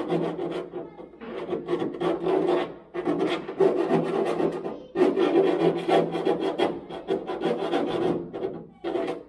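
Hand file rasping back and forth on the edge of a freshly drilled hole in a combine's sheet-metal panel, taking off the burr left by drilling. The strokes come in runs of a second or two with brief pauses between them.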